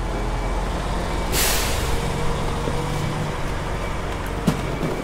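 Truck engine running steadily, with a short hiss of air, like an air brake, about one and a half seconds in and a sharp click near the end.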